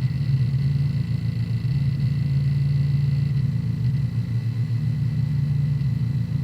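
Hard disk drive working through a defragmentation, its read/write heads seeking continuously in a dense, rapid low chatter over a steady high tone.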